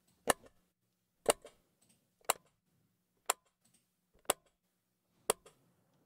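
Clock-tick sound effect, six sharp ticks one second apart, played through a transient shaper that boosts the attack of its low frequencies to give each tick more punch and body.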